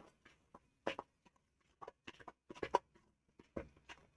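Fermented khaman batter being mixed and beaten in a bowl: a run of light, irregular taps and clicks.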